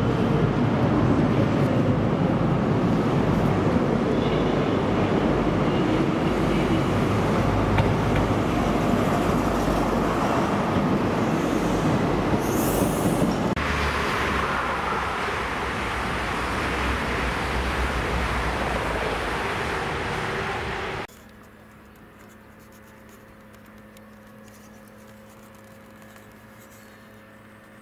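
Class 55 Deltic diesel locomotive, with its twin Napier Deltic two-stroke engines, running loud and steady with a deep rumble. A brief high hiss comes about halfway through, and the sound changes abruptly. About three quarters of the way in it drops suddenly to a much quieter steady hum.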